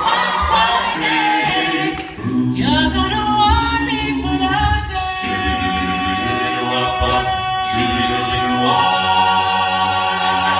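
A cappella vocal group singing in close harmony over a sung bass line, with no instruments. From about halfway the voices hold long notes, swelling into a fuller sustained chord near the end.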